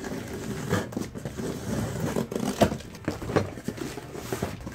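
A cardboard box being cut open with scissors and its flaps pulled back: irregular scraping, clicks and rustling of cardboard and plastic wrap.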